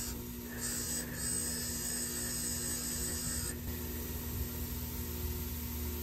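Bench grinder motor running with a steady hum as its wire wheel spins, with a light hiss from a brake caliper piston being brushed against the wheel. The hiss stops about three and a half seconds in, leaving only the motor hum.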